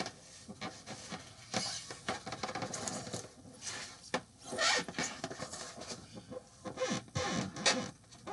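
Irregular rubbing and scraping with scattered knocks as a large, heavy polystone statue is manhandled and worked into place.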